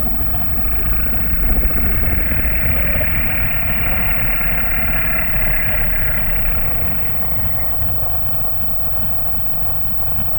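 Designed horror monster growl: a deep, continuous rumble with a rasping upper layer that swells through the middle and eases off near the end.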